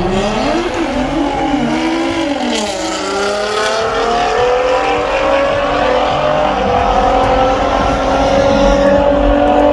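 Two drag-racing cars launching off the line and accelerating hard down the strip. Their engines rev up and drop back at each quick upshift in the first three seconds or so, then pull in one long rising tone through the higher gears.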